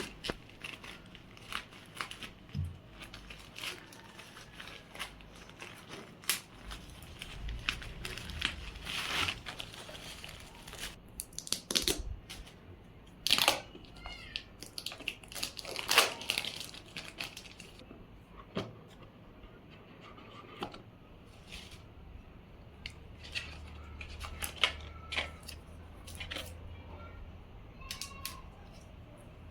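Handling of a smartphone's retail box and packaging: irregular rustling, tapping and crinkling, with plastic and paper being torn and opened.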